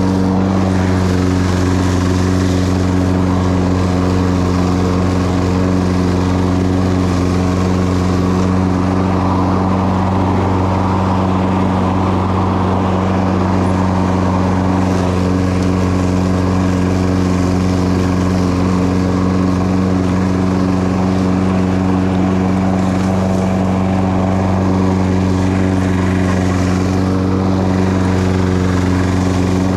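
Toro Personal Pace self-propelled lawn mower's Briggs & Stratton 190cc engine running at a steady speed while mowing grass.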